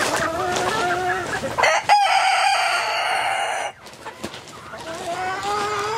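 Chickens clucking, then a rooster crows loudly, a long held call of about two seconds that cuts off sharply. Softer hen calls follow near the end.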